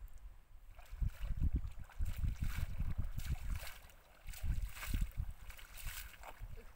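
Feet wading through shallow muddy water, a series of splashing steps, with wind buffeting the microphone.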